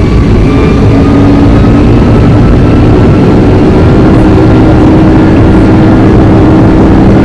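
Boeing 757-200's jet engines running at high power, heard inside the passenger cabin: a loud steady rumble with a faint whine that rises slowly in pitch, and a low hum that grows stronger about three seconds in.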